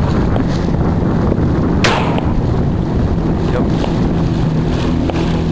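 Small boat's outboard motor running steadily, with wind noise on the microphone, and one sharp shotgun shot about two seconds in.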